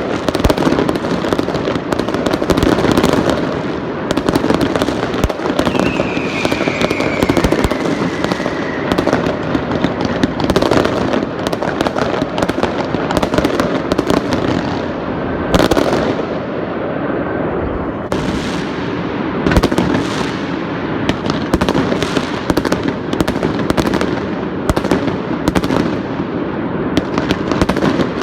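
Fireworks barrage: salvo after salvo of bangs and crackling, densely overlapping. A whistle slides down in pitch about six seconds in.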